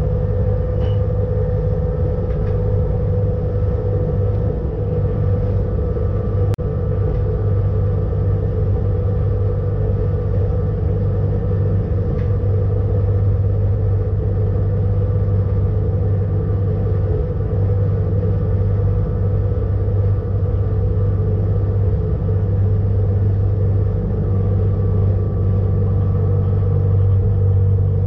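Electric rack railcar (ČSD class EM 29.0) running steadily, heard from inside the driver's cab: a continuous low hum and rumble with a steady whine above it that does not change in pitch.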